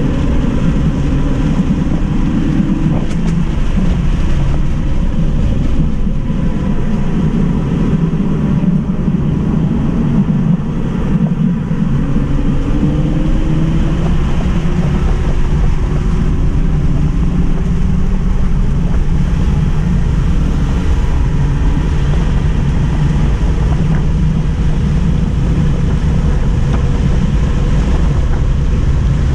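Steady road and wind noise inside the cabin of a 2018 Tesla Model 3 Mid Range RWD driven hard on track, speeding up from about 50 to over 100 mph. A faint whine rises in pitch partway through.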